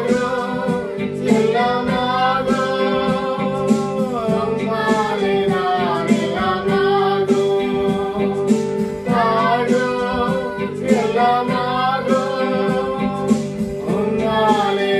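A family singing a worship song together, the mother's and daughters' voices leading with the father's, over a guitar accompaniment.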